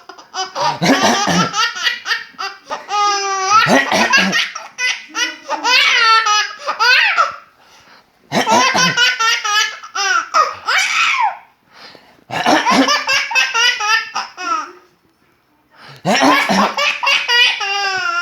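A baby boy belly-laughing hard, in four long bouts of giggles separated by short pauses.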